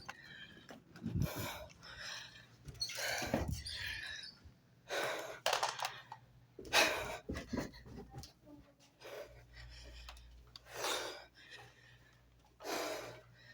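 A person breathing close to the microphone, one breath about every two seconds.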